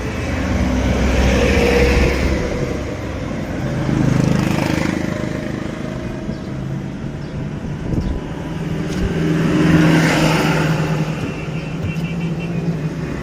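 Motor vehicles passing by over a steady low hum: three vehicles in turn, each rising and fading.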